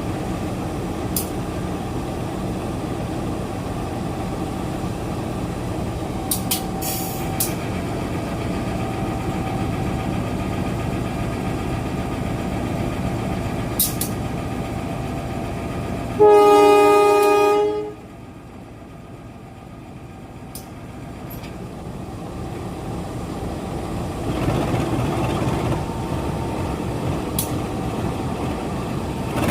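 A train running on the track with a steady rumble, then one loud horn blast of about a second and a half just past the middle. After the horn the noise drops, then builds again near the end.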